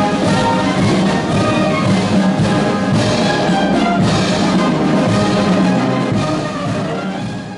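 Military band playing a march, with brass to the fore; it fades down near the end.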